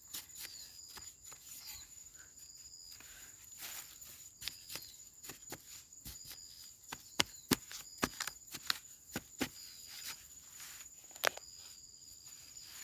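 A long-handled metal digging spade jabbing and scraping into soil and roots, making irregular sharp knocks and clicks as clods are loosened and thrown aside. Insects keep up a steady high trill with short repeated chirps behind it.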